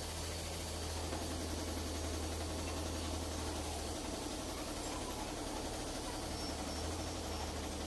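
Steady low hum of running machinery with a faint hiss, unchanging throughout.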